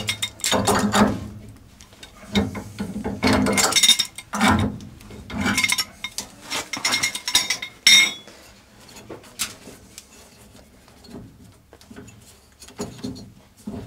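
Pipe wrenches clinking and scraping on steel gas pipe fittings as the old gas line connections are unscrewed and taken apart. Irregular metallic clicks and scrapes, busiest in the first half, with a sharp clank about eight seconds in, then only scattered quieter knocks.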